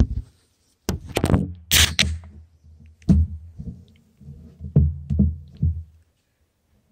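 A 500 mL can of Birra Moretti beer opened: a sharp click about a second in, then a short loud fizzing hiss. It is followed by a run of irregular knocks and thumps as the phone filming falls over on the wooden picnic table and is handled.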